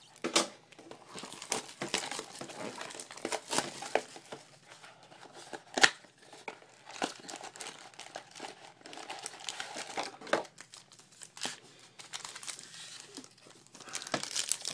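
Crinkling and tearing of trading-card pack wrappers and packaging being opened by hand, with irregular crackling and a few sharp snaps.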